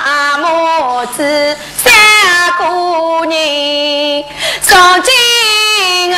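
A woman's voice singing a slow Yao opera mourning lament, holding long notes that slide from pitch to pitch, with two brief breaths between phrases.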